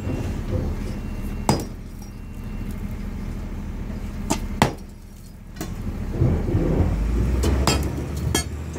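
Sledgehammer blows on a large concrete block, sharp strikes at irregular intervals, the loudest about four and a half seconds in and several close together near the end, over a steady low machine hum.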